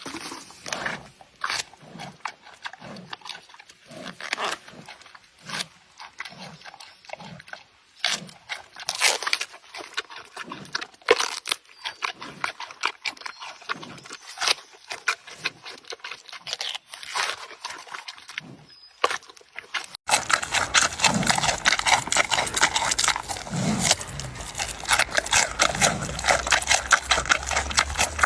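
Giant panda eating: close, wet crunching and chewing, with irregular snaps and crackles of food being bitten and broken. About two-thirds of the way through the sound turns louder and denser.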